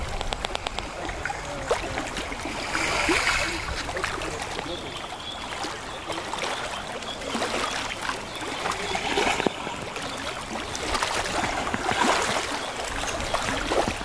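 Gentle sea waves lapping and splashing close by, swelling a little every few seconds.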